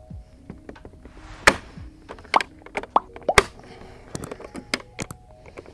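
Plastic battery dry box knocking and clicking against a kayak's plastic hull as it is pressed down into the hatch well: several sharp knocks among lighter taps, the loudest about one and a half and three and a half seconds in.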